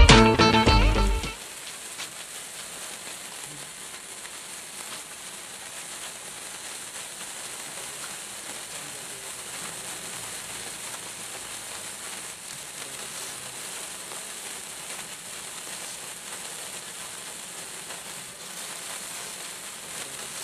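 Tricolor sparkler burning with a steady fizzing hiss and fine crackle; music cuts off about a second in.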